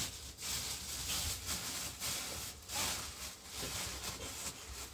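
Cloth rustling with soft handling noises in short, irregular bursts.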